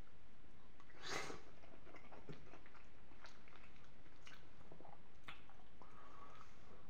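Close-miked eating of creamy béchamel penne with peas from a metal spoon: a loud wet mouthful about a second in, then chewing with scattered mouth clicks and smacks, and a short squeak near the end.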